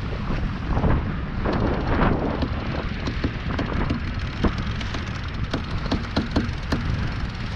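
Wind buffeting the microphone over water rushing and splashing along the hull of a sailboat heeled under sail. There is a louder rush of spray about two seconds in, then a scatter of short sharp slaps through the second half.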